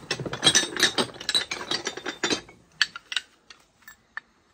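Rapid crackling and clicking of objects being handled and unpacked from a box, dense for about two and a half seconds, then a few scattered single clicks.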